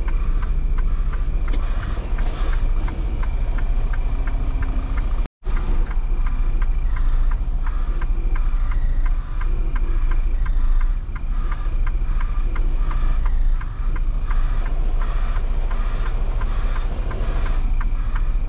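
Semi-truck's diesel engine running steadily at low speed, heard inside the cab while the truck maneuvers a trailer at low speed, with many light clicks and rattles over the low rumble. The sound cuts out completely for a moment about five seconds in.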